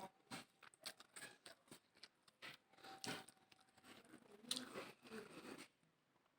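Faint eating sounds: quiet chewing and crunching of food, with many small scattered clicks.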